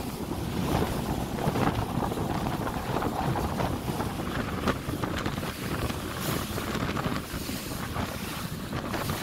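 Bass boat under way across choppy water: heavy wind buffeting the microphone over rushing water, with irregular slaps of the hull on the waves.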